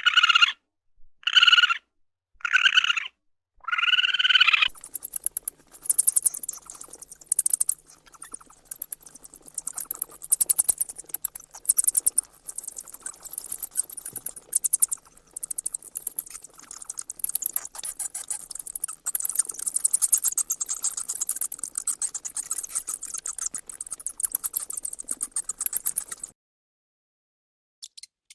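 An animal calling five times, each call short and about a second and a half apart, the last one longer. It is followed by a long stretch of rapid, high-pitched clicking or chirring that stops suddenly near the end.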